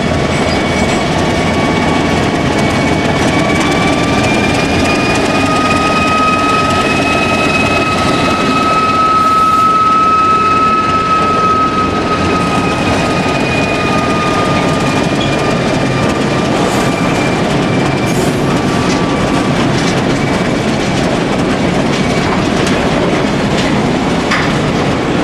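Train of railway tank wagons hauled by a TEM2 shunting diesel locomotive rolling past: a steady rumble of wheels on rail with clacking over the rail joints. Over it a high squeal, likely from the wheels, rises slightly in pitch, is loudest about ten seconds in, and fades away well before the end.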